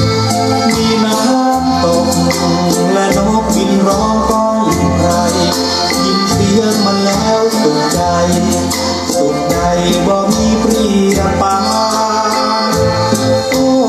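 Recorded music played back through a homemade loudspeaker: an instrumental passage of a Thai song, with held melody notes, a pulsing bass line and a fast rattling percussion beat.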